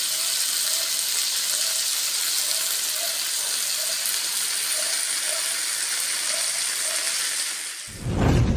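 Steady sizzling of food frying in hot oil on a hot pan, an even hiss. Near the end it fades and a louder, deeper sound takes over.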